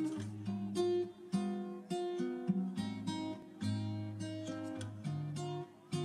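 Background music: an acoustic guitar picking a slow melody, about two notes a second.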